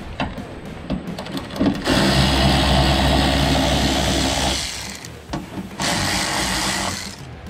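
Cordless 3/8-inch electric ratchet (Milwaukee M12 Fuel) running in two runs, about two and a half seconds and then about a second, backing out the bolts on a truck's fender flare.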